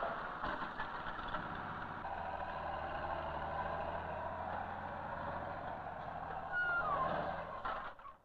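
Heavy earth-moving machinery running steadily, its engine giving a low even hum under a noisy rumble. A short falling whine comes near the end, and the sound cuts off just before the end.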